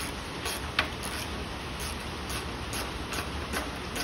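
Hand socket ratchet clicking as a bolt on a motorcycle is turned: a run of sharp ticks about two or three a second, the loudest just under a second in, over a faint low hum.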